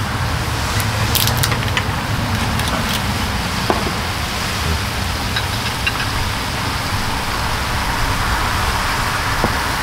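Thin-sliced pork belly sizzling on a pan over a portable gas burner: a steady sizzle with scattered crackles and pops, a cluster of them about a second in, over a steady low rumble.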